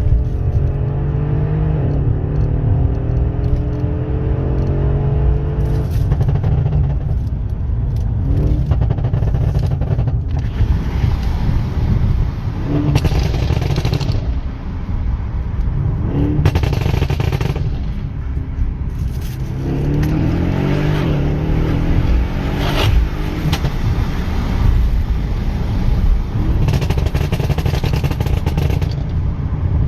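Mercedes S63 AMG V8 with a Stage 1 tune accelerating hard, its note rising in pitch, then running with repeated sharp exhaust pops and bangs between pulls.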